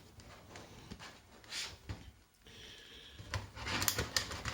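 Faint rubbing and rustling of plastic and paper packaging being worked open by hand, with scattered small clicks that come more often near the end.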